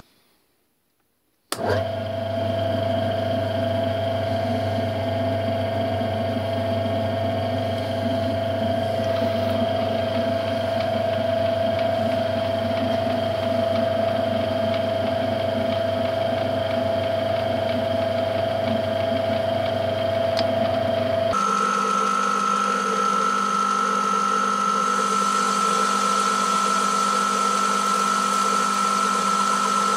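Metal lathe running, turning a steel shaft on power carriage feed: a steady machine whine over a low gear hum. It starts after a second or so of silence, and about two-thirds of the way through the tone changes abruptly to a higher pitch.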